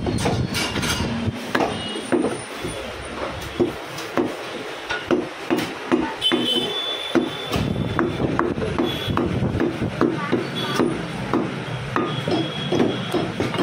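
Butcher's cleaver chopping goat meat on a wooden chopping block, in rapid, even strokes of about three a second.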